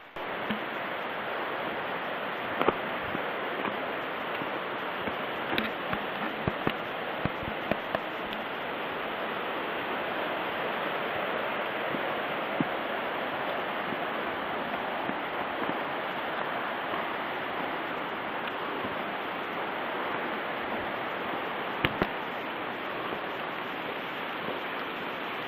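Steady rushing of flowing water, as from a mountain stream, with a few sharp clicks or knocks scattered over it.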